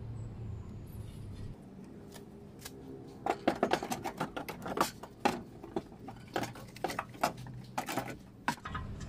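Irregular clinks and knocks of metal parts as a front shock absorber and coil spring assembly, with its new top mount, is handled and guided up into the wheel arch. The knocking starts about two seconds in and stops shortly before the end.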